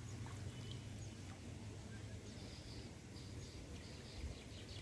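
Faint outdoor ambience: a low steady hum with scattered faint bird chirps, and quiet water sounds as a cast net is drawn in by hand in shallow water.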